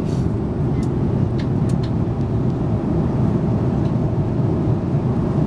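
Steady low rumble of airliner cabin noise in flight, with a few light clicks from the buttons of the in-seat entertainment handset being pressed.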